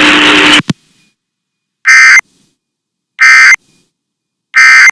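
Emergency Alert System end-of-message signal: three identical short, raspy digital data bursts, evenly spaced about a second and a half apart, the SAME code that closes an alert. Before them, a loud hiss of noise cuts off with a click under a second in.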